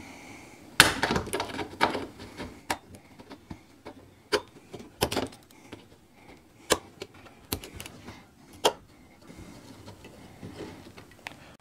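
Locking pliers clamped on a rusty screw head in an aluminium camper window frame, turning the screw out. Scattered, irregular metal clicks and taps come about once a second as the jaws shift and bite on the screw.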